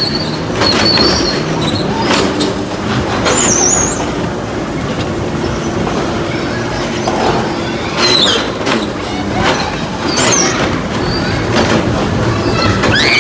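Handling noise from a GoPro strapped to the body of a child running and climbing through a jungle gym: steady rumbling and rubbing with scattered bumps. Several short, high, shrill squeals cut through now and then.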